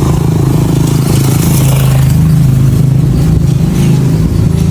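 Motor vehicle engine running steadily and loudly close by, a continuous low hum with a fast pulsing beat.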